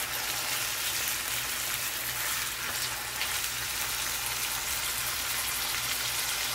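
Pork strips sizzling steadily in a nonstick frying pan, stir-fried over high heat in caramelized sugar and garlic.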